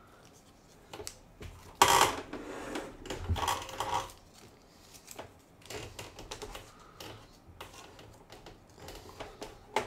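Clear plastic hull and deck of a Trumpeter 1/48 Type VIIC U-boat kit clicking and rustling under the hands as the deck, sitting a little proud, is pressed down to seat. There is a sharp click about two seconds in, then a run of small taps and clicks.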